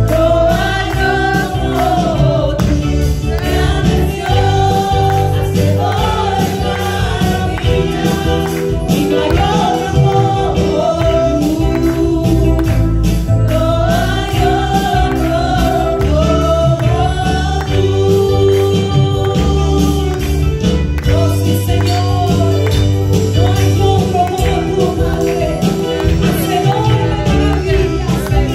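Spanish-language gospel praise song: singers carrying a melody over a band with heavy bass and a steady drum beat.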